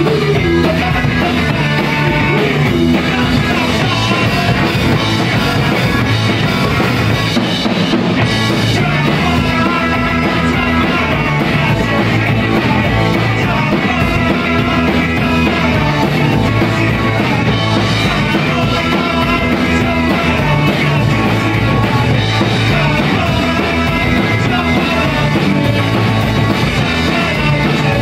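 Punk rock band playing live: loud electric guitars and drum kit, with a male lead singer shouting into the microphone.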